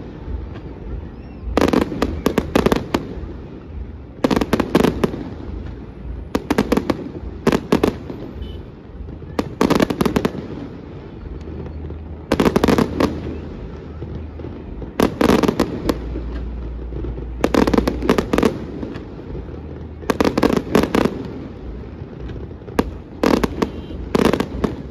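Aerial fireworks shells bursting overhead in quick clusters of sharp bangs, a new cluster about every two to three seconds, over a steady low rumble.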